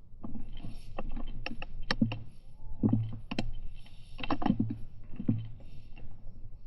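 A quick, irregular run of sharp clicks and knocks, many with a dull thud under them.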